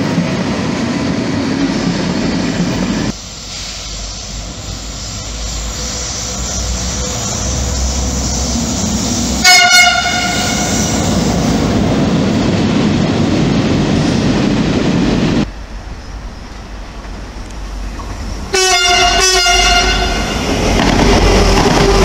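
Trains running past on the rails, with a short, loud train horn blast about halfway through and a few quick horn toots near the end, given as a driver's greeting.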